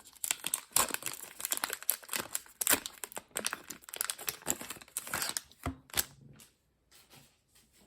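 Wrapper of a Heritage baseball card pack being torn open and crinkled: dense crackling for about five seconds, then a few lighter handling clicks and a near-quiet end.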